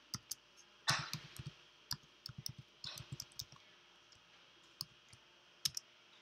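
Computer keyboard keys being typed in short irregular runs of clicks, a quick burst about a second in and another around two to three seconds, then a couple of single taps near the end.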